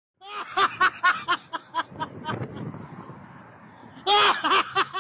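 People laughing: a quick run of short bursts of laughter, about four a second, over the first two seconds, and another burst of laughter near the end.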